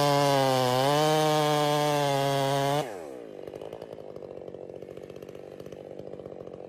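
Two-stroke chainsaw running at high revs for nearly three seconds, then the throttle is released and the revs fall away to a quieter, unsteady idle.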